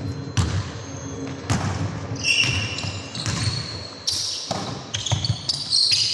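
Basketball bouncing on a hardwood court floor as it is dribbled and passed: a string of sharp thuds. From about two seconds in come short high squeaks of basketball shoes on the floor.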